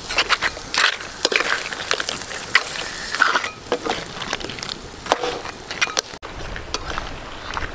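Metal spatula scraping a wok and knocking against blue crab shells while they are stir-fried in curry sauce: irregular clacks and scrapes over a hiss of frying.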